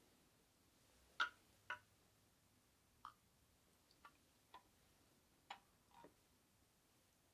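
A small sake glass clinks and taps lightly against its red square stand as it is picked up and set back down: about seven faint, separate clicks spread over several seconds, the sharpest about a second in.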